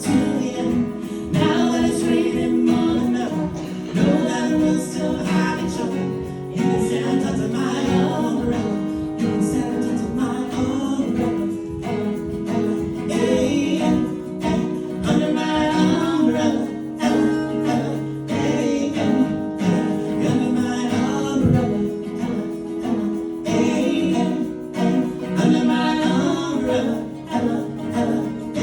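Music: a band's acoustic arrangement with singing over plucked guitar.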